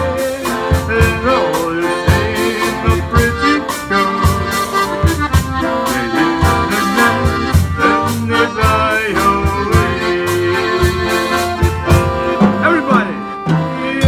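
Polka band playing an instrumental passage: accordions carry the melody over a steady drum-kit beat, with electric guitar accompaniment.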